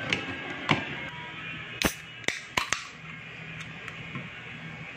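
Aluminium beer can being opened by its pull tab: a few sharp clicks and cracks about two seconds in, over faint background music.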